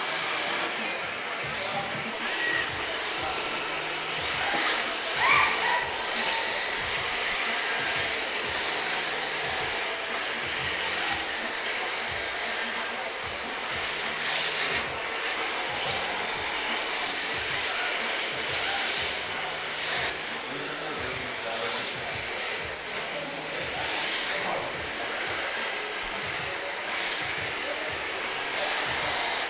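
Several electric 1/10-scale RC drift cars running together, a steady whirring hiss of motors and hard drift tyres sliding on the track surface. A few sharp knocks sound through it, near the start, midway and about two-thirds of the way in.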